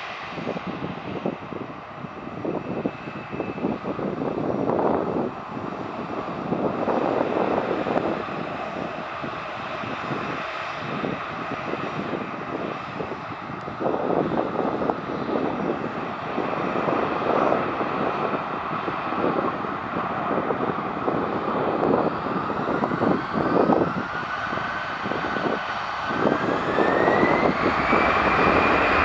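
Airbus A320-214's CFM56 jet engines running at low power, then spooling up for takeoff. About three quarters of the way through, a whine rises steadily in pitch and the engine noise grows louder.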